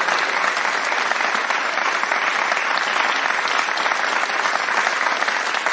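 Crowd applause: many hands clapping together in a dense, steady patter.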